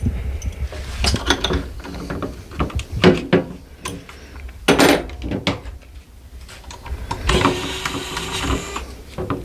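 Hand tools and battery parts being handled during disassembly of a lithium battery pack: irregular clicks, knocks and clatter, with a steadier rattling stretch of under two seconds near the end.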